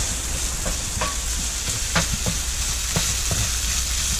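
Diced bacon sizzling in oil in a frying pan, with a wooden spoon stirring it and knocking against the pan every second or so.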